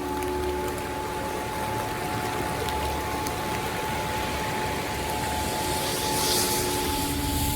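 Steady rush of water from a mountain stream flowing over rocks.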